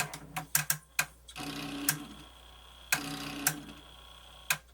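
Pioneer CT-W802R cassette deck's transport mechanism: a quick series of clicks as it is pressed into action, then the mechanism motor whirs twice for about half a second each, each run ending in a click, as it tries to cycle the up-and-down cam. The drive belt is so loose that the mechanism lacks the power to lift.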